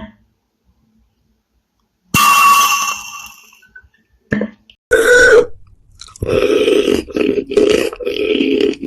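A person's non-speech throat and breath sounds: a breathy burst about two seconds in that fades away, a short loud one near the middle, then a long drawn-out sound broken by several short gaps near the end.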